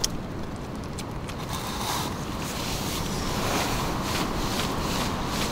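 Portable camp stove burner running steadily under a pot of boiling food, a continuous rushing hiss. A few light clicks sound in the first second or so.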